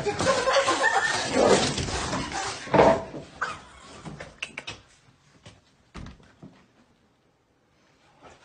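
A dog making loud noisy cries for about three seconds, then a door being opened with a few quieter clicks and knocks, the sharpest about six seconds in.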